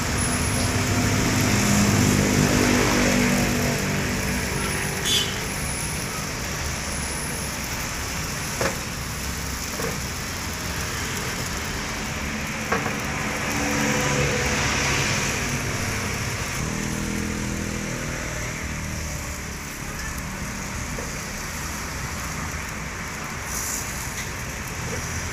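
Road traffic passing close by, with vehicle engine hum swelling and fading near the start and again around the middle, over a steady background noise. A few sharp light clicks are heard.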